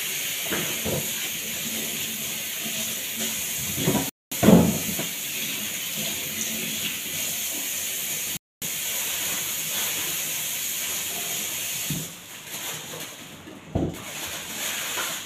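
Kitchen tap running steadily into a stainless steel sink while vegetables are rinsed under it, with short splashes and knocks from handling them, the loudest about four seconds in. The flow stops about twelve seconds in.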